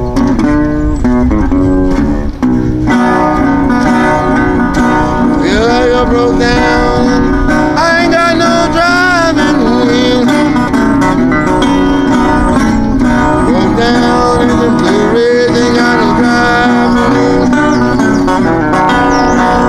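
Wood-bodied resonator guitar fingerpicked in a blues, playing continuously, with some notes gliding in pitch.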